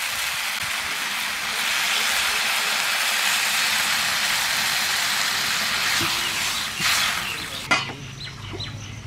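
Hot pan of spice-fried vegetables and Malabar spinach sizzling and hissing loudly as water is poured in. The hiss swells about two seconds in and cuts off abruptly near the end.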